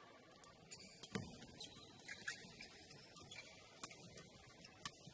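Badminton rally, faint: about half a dozen sharp racket strikes on the shuttlecock at irregular intervals, with a heavier thud about a second in.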